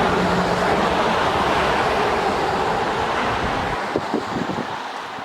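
Strong, gusty wind rushing, with wind buffeting the microphone in a low rumble that drops away about four seconds in.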